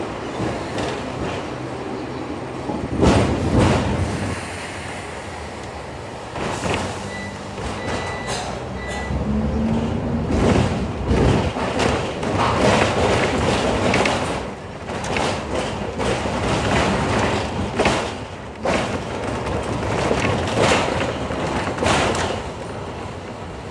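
Hong Kong double-decker electric tram running along its tracks, heard on board: steady running noise with irregular knocks and clatter from the wheels over rail joints and points, and a heavy thump about three seconds in.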